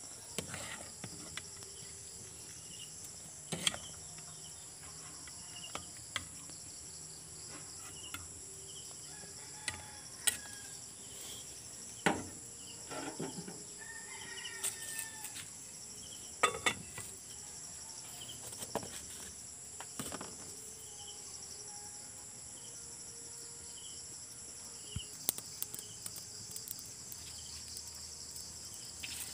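Steady, high-pitched chorus of insects. Scattered sharp knocks and clicks and short, faint chirps come through now and then.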